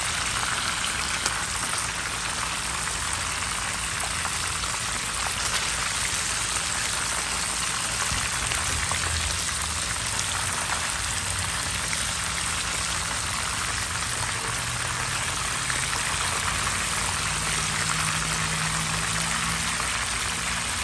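Cooking oil sizzling steadily around pieces of red snapper frying in a pan.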